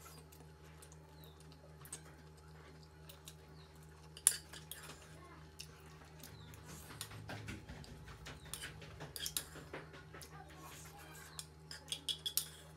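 Someone eating noodles from a bowl: a utensil clicking and tapping against the bowl at irregular intervals, with one sharper knock about four seconds in and a quick run of taps near the end, over a steady low electrical hum.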